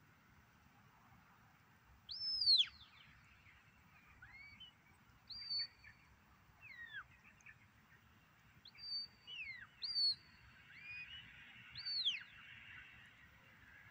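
A handler's sheepdog whistle giving a run of short whistled commands to a working dog: pure notes that rise and fall or hold flat, the first and loudest about two seconds in, then about a dozen more spread over the next ten seconds.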